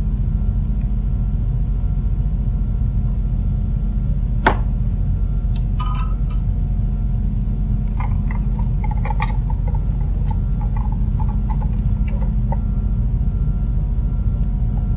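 Steady low background hum, with a sharp click about four and a half seconds in. Light clicks and rattles of a small circuit board and its wires being handled come through later.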